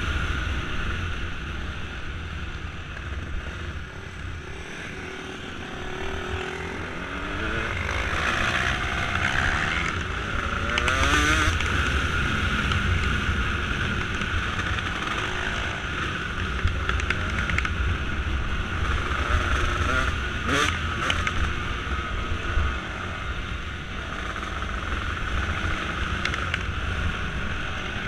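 Dirt bike engine heard from on board while riding, its pitch climbing as the rider accelerates around a third of the way in and again past two-thirds, with wind buffeting the microphone.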